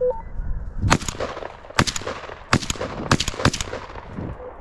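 Gunshots at a deer, about five sharp reports in quick succession in under three seconds, each with a short echo.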